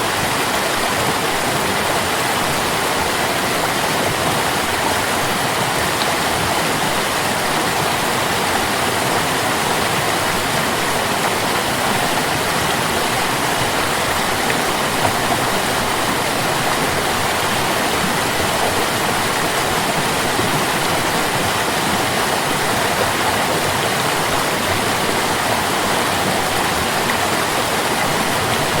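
A stream of water flowing steadily, an even, unbroken sound of running water.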